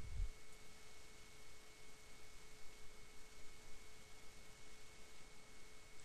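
Quiet room tone: faint hiss with a thin steady electrical hum.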